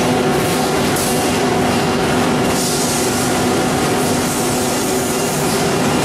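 Conveyor line machinery running steadily: a constant mechanical din with several steady humming tones and a hiss over it.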